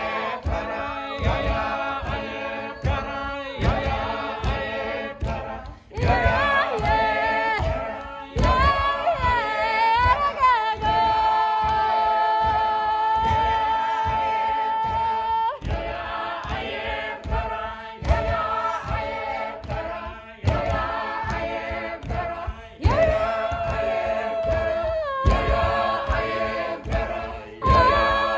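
A small group of voices singing a cappella, with wavering sung lines over a steady low beat. Near the middle one long note is held for about four seconds.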